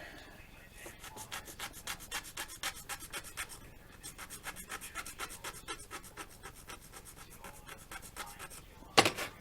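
Hand file rasping the edge of a plastic model-kit part in quick, even strokes, about five a second, taking material out of the center so the piece fits tighter. A single sharp knock comes near the end.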